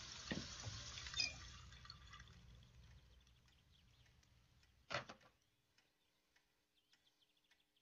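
Faint trickle of water from a kitchen tap running into a cup, fading out after about a second. Then near silence, with one brief faint sound about five seconds in.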